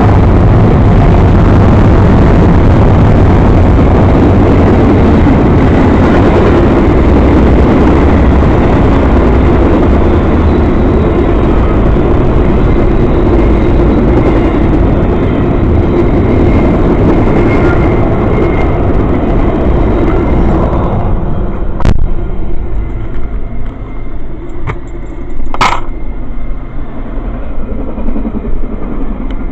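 Train passing close by at a crossing: a loud, steady rumble that drops away about 21 seconds in, leaving a quieter, rougher noise with a few sharp clicks.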